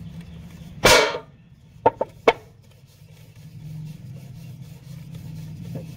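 Wooden rolling pin working dough on a steel plate: a brief loud clatter about a second in, then two sharp knocks of wood against steel, over a steady low hum.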